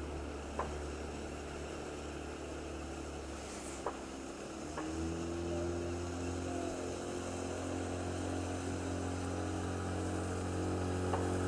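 Small motorboat's outboard engine running steadily out on the water, its note growing a little louder and fuller about five seconds in. Two faint clicks near the start.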